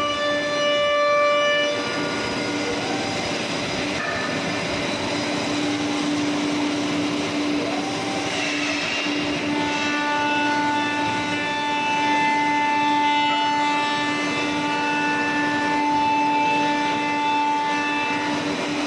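Changfeng CF-MASTERT2-16 five-axis CNC router's spindle carving a curved wooden chair part: a steady machine whine over the noise of cutting, the whine changing pitch about two seconds in and again about halfway through.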